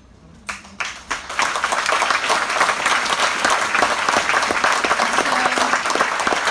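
Audience applauding: a few scattered claps at first, swelling into full, steady applause after about a second.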